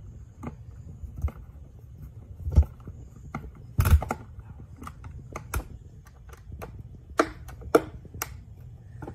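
Irregular clicks, taps and knocks of small screws and plastic vacuum parts being handled while the screws are driven in, with two louder thumps about two and a half and four seconds in.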